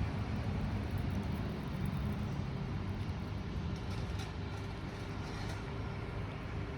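Steady low rumble of city street traffic, with a few faint clicks about four to five and a half seconds in.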